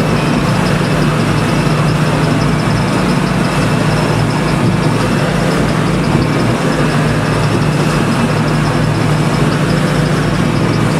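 Fishing boat's engine running steadily, a constant low hum with a rush of noise over it.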